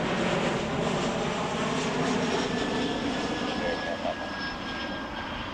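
Jet airliner engines passing: a steady, loud rush with a faint whine, slowly fading toward the end.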